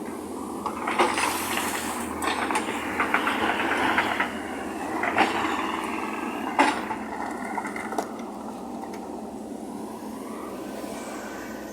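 Heavy construction machinery running, with several sharp clanks and knocks of metal over the first eight seconds, settling to a steadier, quieter running sound near the end.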